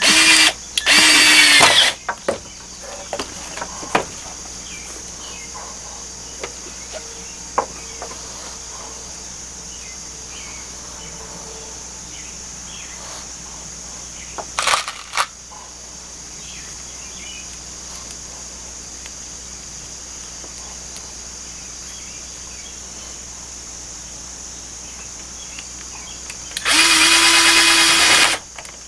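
Power drill running in short bursts with a steady motor whine: two runs at the start, a brief one about halfway, and a longer one near the end. Between them there are small clicks of handling and a steady high insect drone.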